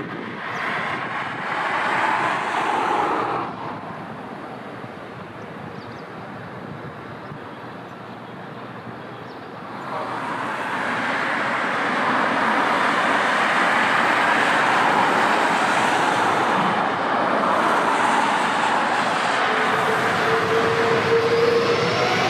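Jet airliner engines growing louder as the aircraft approaches: a broad roar builds about ten seconds in and holds loud, with steady engine whine tones coming through near the end.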